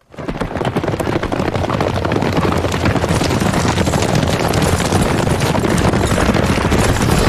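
Many horses galloping together: a dense, steady clatter of hooves.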